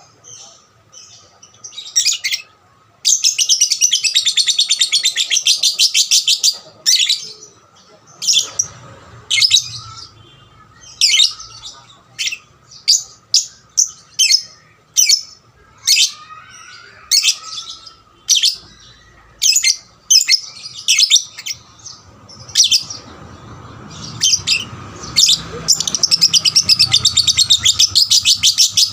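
Young lovebird calling: short, sharp high chirps in irregular runs, with two long, rapid chattering trills of a few seconds each, one about three seconds in and one near the end.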